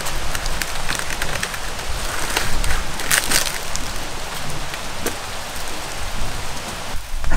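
Dry woven palm-leaf screen rustling and crackling as it is handled and shifted upright, with scattered sharp crackles over a steady rustle.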